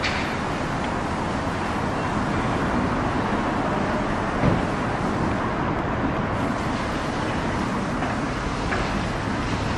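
Steady rumble of an approaching DF4B diesel locomotive's engine, mixed with road traffic noise, with one brief thump about four and a half seconds in.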